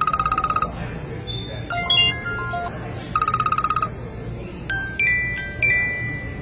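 iPod touch ringtones and alert tones playing one after another: a rapid pulsing electronic trill, a short run of chime-like notes, the same trill again, then a few bell-like chime strokes. A steady low hum runs underneath.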